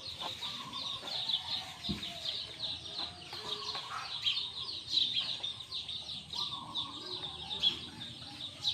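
Chickens clucking, with low pitched clucks now and then over a dense, continuous chatter of short, high peeps.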